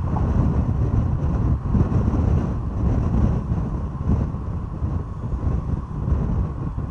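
Low, steady rumble of a moving vehicle, with wind buffeting the microphone.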